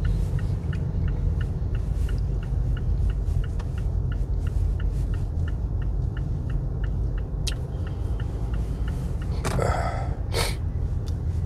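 A man coughing or huffing out breath twice in quick succession near the end, over a steady low rumble with faint regular ticking about three times a second.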